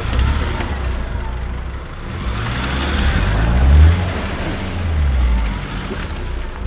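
Pickup truck engine revving under load as it is driven over a log, rising to a peak about four seconds in, easing off, then swelling again, with a rushing noise over it.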